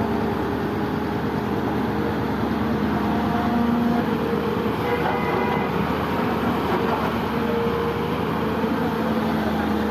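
Large diesel engine running steadily, a continuous low mechanical drone.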